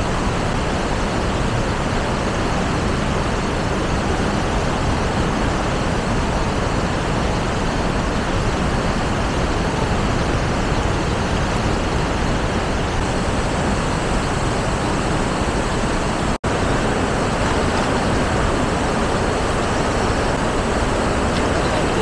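River water rushing over rocks in shallow rapids: a steady, loud rush that cuts out for an instant about two-thirds of the way through.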